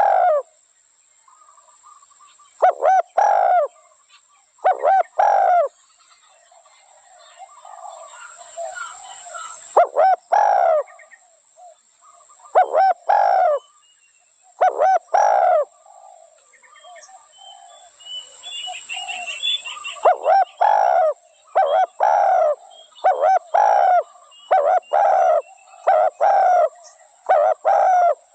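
Spotted dove cooing, repeating its short call phrase of about a second many times, in a quick run of calls over the last third. Other small birds chirp softly between the coos.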